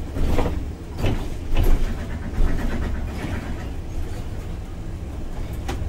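Interior of a MAN Lion's City articulated bus under way on its biogas engine: a steady low rumble of engine and road, with several brief rattles and clunks from the bus body and fittings.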